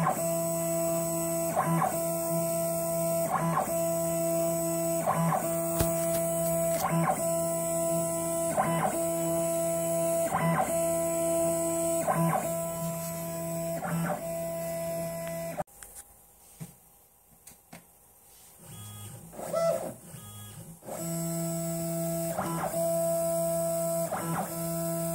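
Background guitar music with a steady, slow beat. It drops out for about five seconds past the middle, leaving only a few faint short sounds, then comes back.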